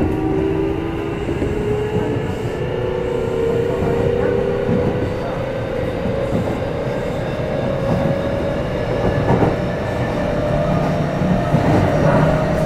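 Kintetsu 5211 series electric train running, heard from aboard motor car Mo 5212. A whine of several tones rises slowly in pitch as the train gathers speed, over a steady rumble of wheels on rail.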